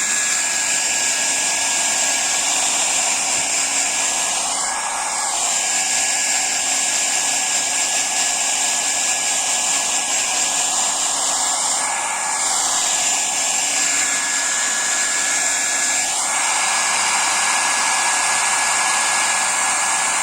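Hair dryer running steadily, a rush of air with a thin high whine. Its sound sweeps and shifts briefly three times.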